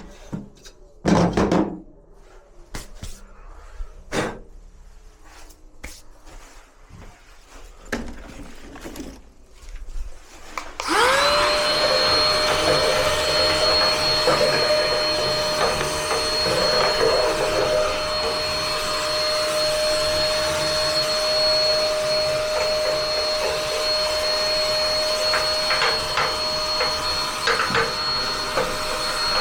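Scattered knocks and clicks, then about eleven seconds in a vacuum cleaner switches on, its motor rising quickly to a steady whining run, used to clear dust from the gas water heater.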